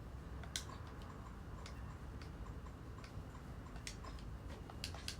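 Faint, scattered sharp clicks and light taps, about half a dozen at uneven intervals, over a low steady room hum.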